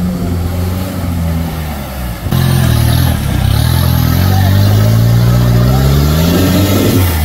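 Off-road jeep engine revving hard under load. The sound changes abruptly about two seconds in, and the revs then climb steadily over the last few seconds.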